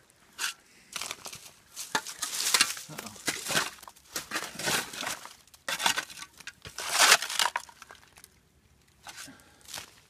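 Steel shovel blade scraping and crunching into loose coal and dirt in a bank, a series of uneven strokes that thin out near the end.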